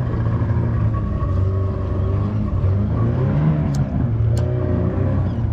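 Boat engine running steadily, its pitch wavering slightly. Two sharp clicks come a little over halfway through.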